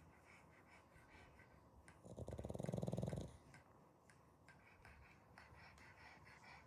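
A sleeping dog snoring: one loud, fluttering snore about two seconds in, lasting about a second.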